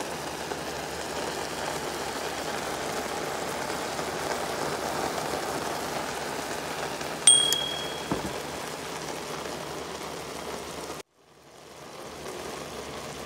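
Sliced mushrooms sizzling and bubbling steadily in butter in a skillet, the water they have released simmering. About seven seconds in a single sharp tick with a short high ring stands out. Near the end the sizzle cuts out briefly and fades back in.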